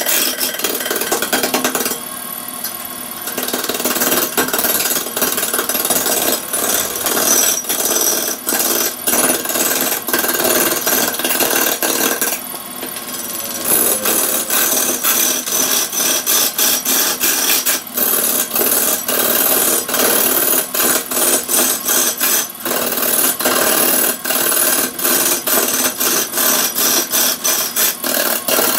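Hand-held turning chisel cutting into a large wooden log spinning on a lathe: a loud, continuous scraping of wood as chips are peeled off. The cutting eases off twice for a second or so, about two seconds in and near the middle, and later breaks up into many short stutters.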